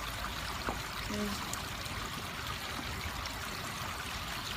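Steady background hiss, even and unbroken, with a brief faint vocal sound about a second in.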